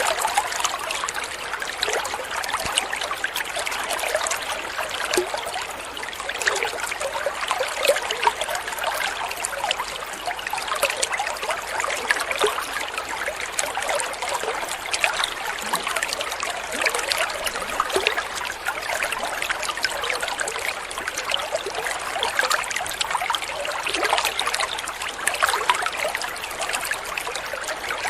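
Shallow flowing water trickling steadily, as in a small stream, with a continuous fine patter of small splashes.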